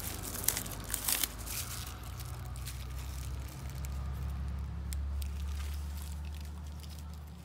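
Clear plastic wrapping crinkling as it is pulled off a hose's brass end fitting, in quick crackles during the first second or so. A low steady rumble follows through the second half.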